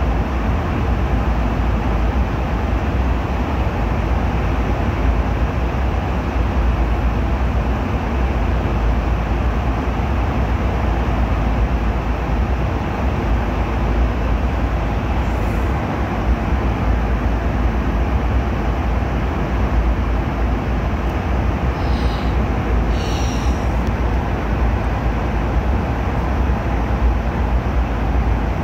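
Steady cabin noise of a Boeing 757-200 airliner in flight: an even low rumble of engines and airflow with a hiss over it.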